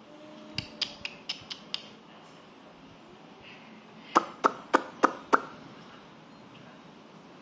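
Kitchen knife chopping on a cutting board: a quick run of six chops, a pause of a couple of seconds, then five louder chops about three a second.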